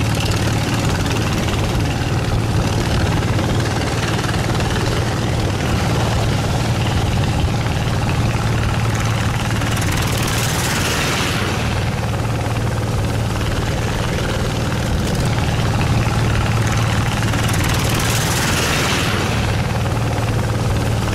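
Motorboat engine running steadily with a constant low hum, as a boat travels across the lake. A stronger rushing hiss swells twice, about ten seconds in and again near the end.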